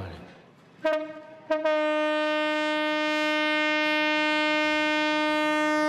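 Horn of the Myanmar Railways diesel locomotive DF.1317: a brief toot about a second in, then one long steady blast on a single note.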